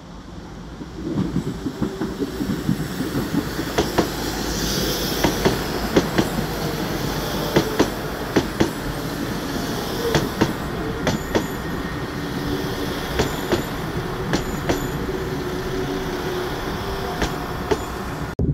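A diesel multiple-unit passenger train passing close by: a steady engine hum under the running rumble, with the wheels clicking sharply over rail joints and points in irregular clusters. It starts about a second in and cuts off suddenly near the end.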